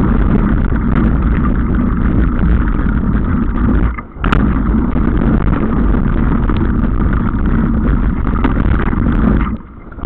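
Wind rushing over the microphone of a camera riding down a gravel mountain bike trail, mixed with the rumble and rattle of tyres and bike over the trail. It breaks off briefly twice, about four seconds in and near the end, each time with a sharp click.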